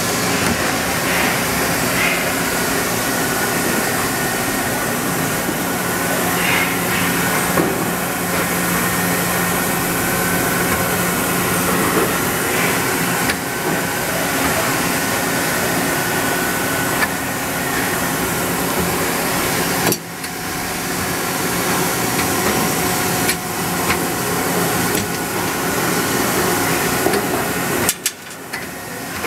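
A Daewoo Puma 160 GT CNC turning center running under power: a steady machine hum with several steady tones, broken by an occasional click or knock. The sound drops out sharply for a moment about twenty seconds in and again near the end.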